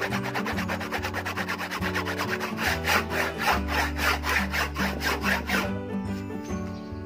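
A metal file rasping across the teeth of a rip-cut handsaw in quick, even strokes, about four a second, to sharpen it; the strokes stop near the end. Background music plays throughout.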